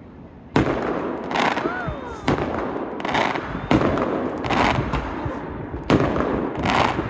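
Fireworks going off overhead, one loud burst after another every second or two with crackling tails. The first comes about half a second in.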